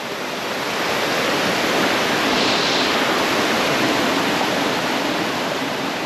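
Waterfall pouring into a rocky bathing pool: a steady rush of falling water, swelling slightly in the first couple of seconds.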